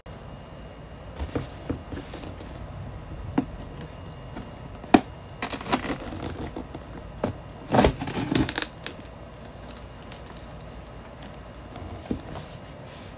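Knife slitting the packing tape along the seam of a cardboard laptop box, with cardboard rustling and tearing: scattered clicks and scrapes, and two longer rasping cuts about six and eight seconds in.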